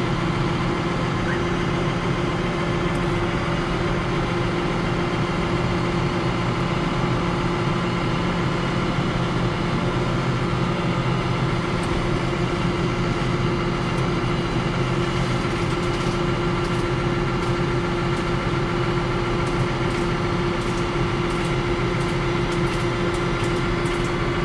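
A modern New Holland tractor's diesel engine idling steadily, heard from inside the cab, with a strong, even hum.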